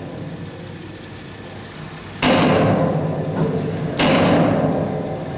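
Dump truck unloading with its box raised, the engine running underneath. Two heavy thuds land about two seconds and four seconds in, each trailing off in a rumble, as the load shifts and drops out of the box.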